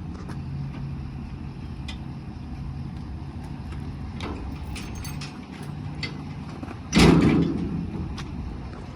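A vehicle engine running steadily, with scattered light clicks. A door is shut hard about seven seconds in, the loudest sound.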